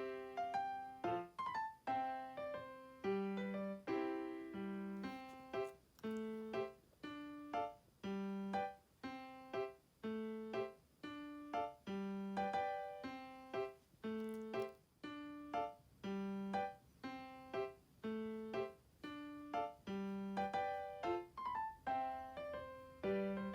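Background piano music: a gentle melody of struck notes that each ring and fade, over a repeating bass line at a steady pace.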